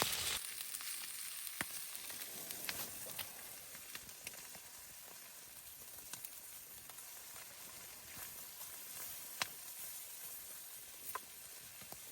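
Faint crackling of a small wood fire: a steady hiss with scattered sharp pops, after a louder sound that cuts off about half a second in.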